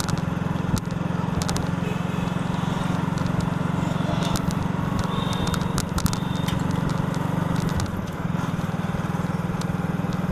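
Motorcycle engine running steadily at cruising speed, with road noise and scattered light clicks; the engine note eases briefly about eight seconds in.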